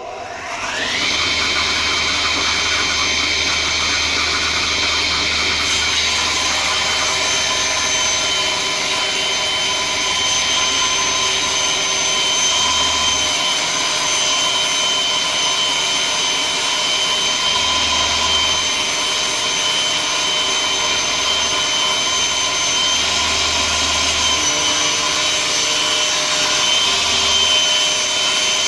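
A table saw is switched on: its motor and blade whine rising in pitch for about a second as they come up to speed, then running steadily.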